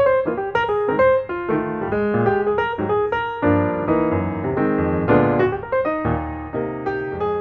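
Background piano music: a run of many short, quick notes over a lower part.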